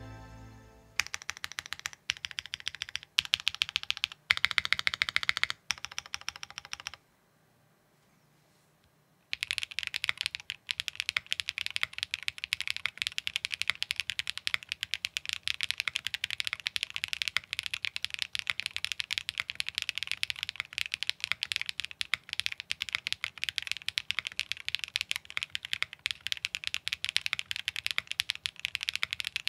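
Typing on a Matrix Lab Corsa 6XV 3.0 mechanical keyboard with an aluminium plate, lubed Geonworks Black switches, no foam and GMK keycaps. It starts with several short bursts of rapid keystrokes, pauses for about two seconds, then settles into steady, continuous fast typing.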